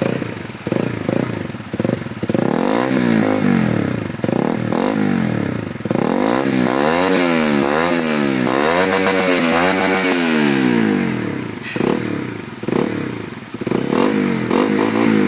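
Honda CBR150R single-cylinder engine revved through a PR2 aftermarket full-system exhaust. It starts with short throttle blips, then rises and falls in quick repeated revs for several seconds in the middle, then goes back to short blips near the end.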